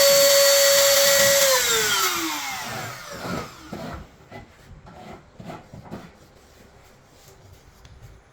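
Electric router motor running at a steady high whine, then switched off about a second and a half in and spinning down with a falling pitch over about a second. After it stops, a few light knocks and clicks from handling the wood and tool.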